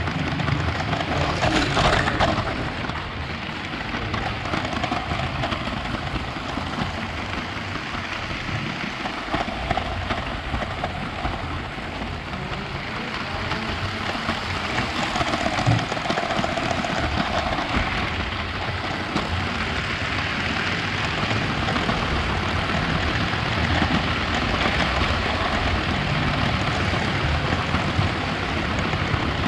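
Lego 9V trains running on 9V track over a wooden floor close to the microphone: a steady rattling rumble of wheels on the rails that swells as trains pass near.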